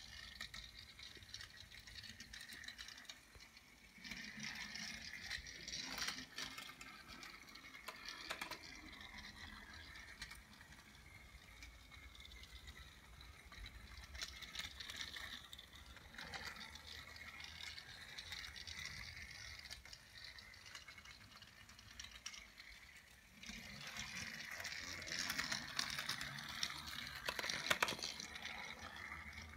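Motorized Thomas TrackMaster toy engine running along plastic track, its small electric motor whirring and its wheels rattling, with a few sharp clicks. It gets louder twice, about four seconds in and again about twenty-four seconds in, as the engine passes close.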